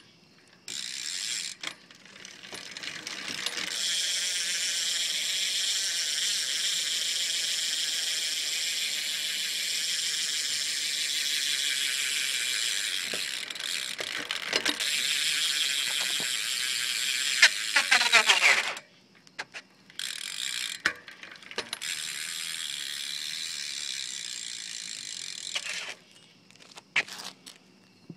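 Rear hub of a Fit Benny 2 BMX bike freewheeling as the upturned wheel spins: a fast, steady ratchet buzz of clicks that starts a few seconds in and stops about two-thirds of the way through. A second, quieter spin follows, with a few separate clicks near the end.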